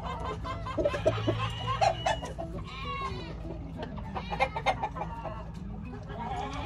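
Chickens clucking in irregular bursts of short calls, busiest about one to two and a half seconds in and again around four and a half seconds.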